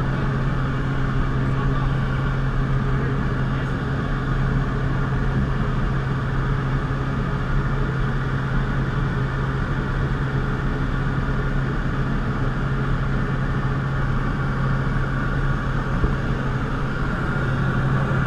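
A jump plane's engine and propeller running steadily, heard from inside the cabin as an even, low drone.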